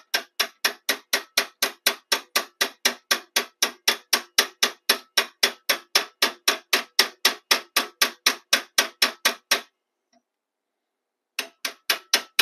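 Small brass-headed hammer tapping a steel punch, driving a roll pin into a pinned AR-15 gas block. The metallic taps come in a steady run of about four a second, break off for a couple of seconds near the end, then start again.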